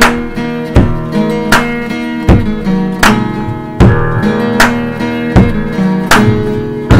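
Background music: an acoustic guitar cover song played with steady strumming, with a sharp accented beat about every three-quarters of a second.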